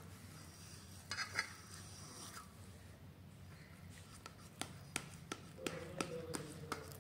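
A utensil cutting a set gram-flour (besan) slab in a steel plate: faint scraping about a second in, then a series of sharp light clicks against the steel, over a low steady hum.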